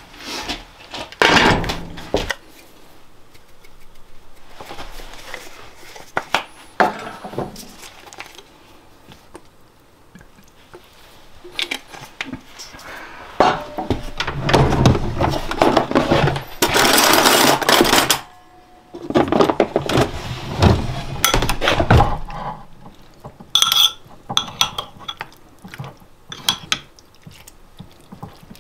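Dishes and utensils being handled: repeated knocks, clinks and scrapes, with a longer rushing, scraping stretch about halfway through.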